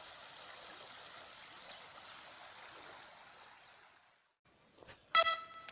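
River water flowing steadily, faint, fading out about three to four seconds in. Electronic music with a beat starts near the end.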